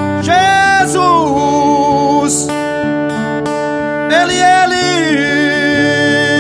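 Music: the instrumental passage of a Portuguese gospel song, with strummed acoustic guitar and two held melodic phrases that slide into and out of their notes.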